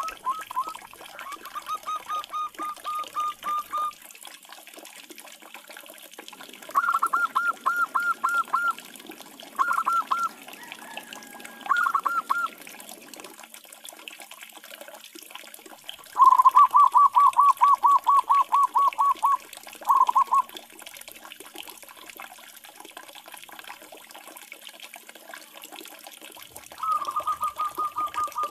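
Zebra doves (perkutut) calling: quick runs of short, clear cooing notes, several a second, in phrases of one to three seconds with pauses between. The longest and loudest run comes a little past the middle. A faint steady hiss runs underneath.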